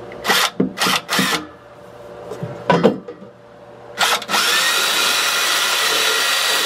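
A few short knocks and clicks, then about four seconds in a cordless drill/driver spins up with a rising whine and runs steadily, driving a screw through a metal shelf standard into the wall.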